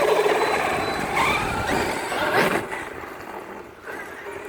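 Electric motor of a large RC monster truck whining under throttle, with a quick rising rev about two and a half seconds in, then fading as the truck moves off.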